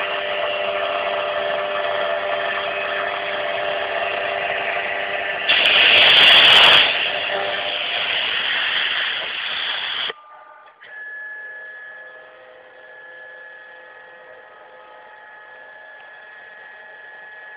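CNC router spindle whining steadily as its bit mills a wooden Les Paul–style guitar neck, with a louder burst of cutting noise around six seconds in. About ten seconds in the level drops sharply, leaving a much quieter steady whine.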